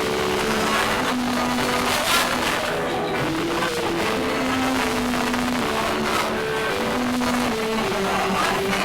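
A slow wordless tune of held notes stepping up and down, one note at a time, over steady background noise.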